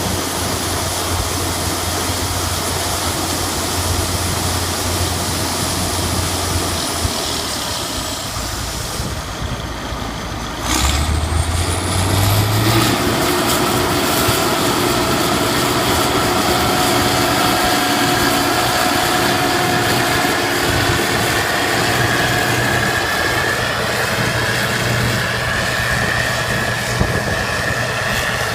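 Combine harvester running steadily with a mix of engine and machinery tones; about eleven seconds in the sound changes abruptly, the engine pitch climbs over a second or two, then it settles into a new steady run with a higher whine.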